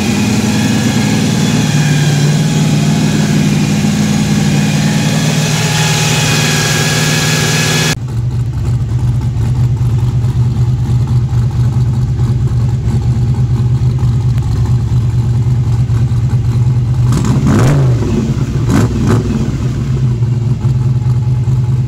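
Carbureted engine of a Chevrolet pickup idling steadily at about 1000 rpm. The sound changes abruptly about eight seconds in, when it is heard from inside the cab. Near the end the throttle is blipped twice in quick succession, each rev rising and falling back to idle.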